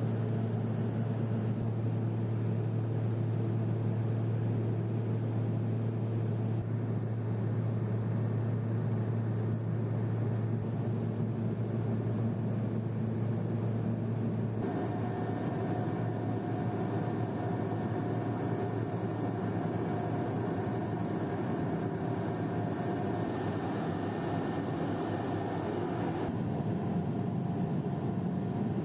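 Steady cabin drone of a Pilatus PC-12's single PT6A turboprop engine and propeller, heard from inside the cabin during descent. A strong low hum with a few higher steady tones above it; the mix of tones shifts about halfway through.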